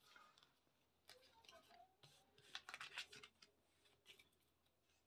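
Faint rustling and scraping of tarot cards being slid together and picked up off a cloth, in two short spells about a second and about three seconds in.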